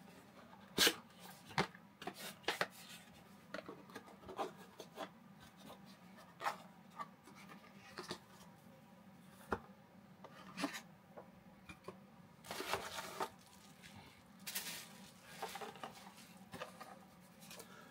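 Unboxing a Canon lens box by hand: quiet scattered taps and clicks with rubbing and sliding of the box and its paper inserts. A longer spell of rustling comes about two-thirds of the way through.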